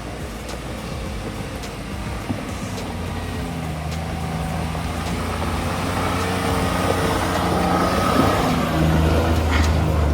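Pickup truck engine working under load off-road, its low drone growing steadily louder.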